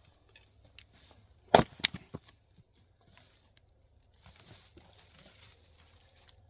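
An axe strikes a round of Douglas fir firewood once, about a second and a half in, with a sharp crack, followed by two lighter wooden knocks just after.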